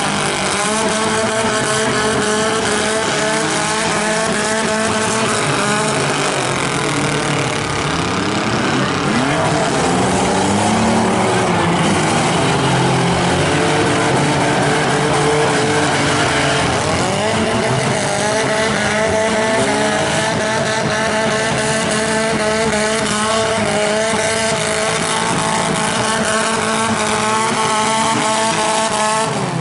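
Several compact-car engines running hard at once in a figure 8 demolition derby race, their pitches rising and falling as they rev up and ease off.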